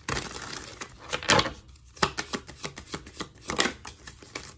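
A deck of oracle cards being shuffled by hand, with quick clicks and flutters of card edges slapping together and several louder riffling swells.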